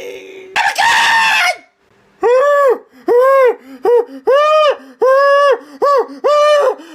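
A man's voice making spooky haunted-house noises: a falling moan, then a loud rough scream, then a run of about eight short high-pitched cries, each rising and falling in pitch.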